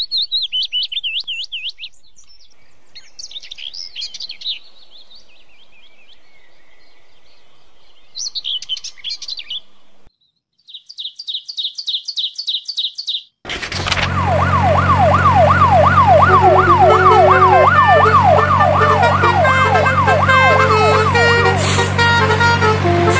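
Birds chirping in repeated quick trills. About thirteen seconds in, a loud siren starts, wailing rapidly up and down over a steady low engine hum and background music.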